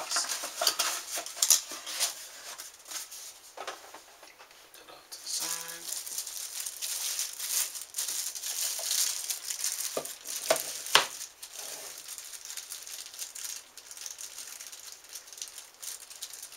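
Plastic packaging bag crinkling and rustling as it is handled and opened, with one sharp knock about eleven seconds in.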